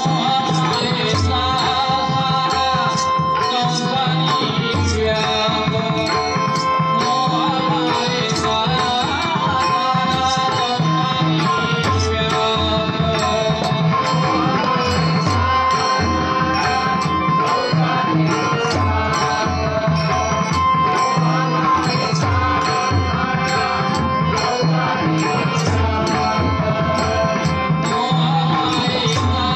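Slow devotional bhajan music: pakhawaj and tabla drumming a slow, even beat with small hand cymbals clicking on the beats, under a steady held melody line.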